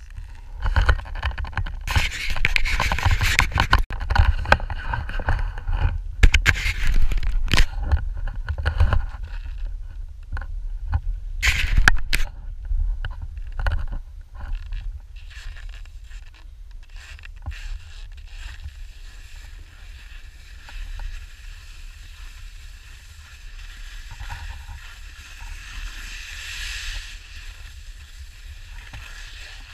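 Skis scraping and hissing over snow, loud and rough with sharp scrapes in the first twelve seconds or so, then a softer steady hiss, over a constant low rumble.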